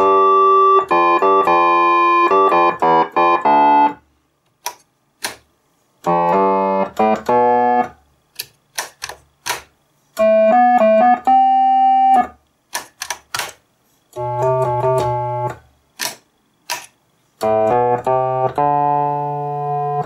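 1979 CRB Diamond Mascot electronic organ played in five short phrases of notes, with its electric piano and flute voices combined, through its own speaker. There are brief pauses between the phrases, with a few clicks in them.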